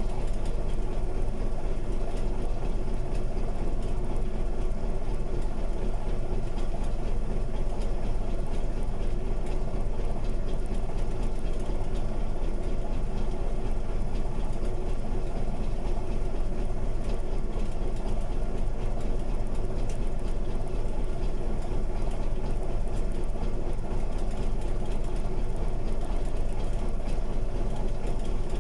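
Crawler bulldozer's diesel engine idling steadily, a low, even rumble that holds the same level throughout.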